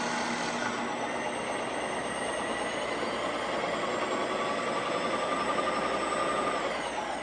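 Ninja Creami Deluxe ice cream maker running steadily, its motor spinning the blade through a frozen pint of ice cream base near the end of its ice cream cycle. Near the end the pitch begins to fall as the cycle finishes and the motor winds down.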